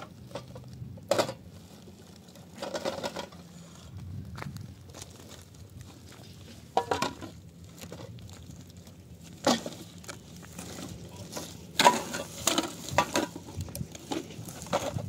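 Irregular crunching and rustling: footsteps on dry, stony ground and a plastic sack being handled as litter is picked up and put into it. The bursts come in scattered groups, with the loudest cluster of rustles and clatter near the end.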